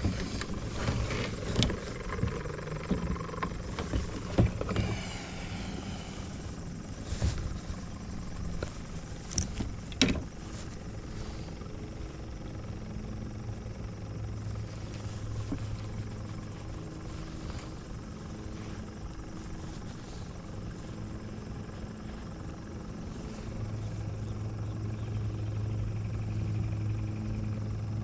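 A motor's steady low drone, growing louder about 24 seconds in. Scattered clicks and knocks sound over it in the first ten seconds.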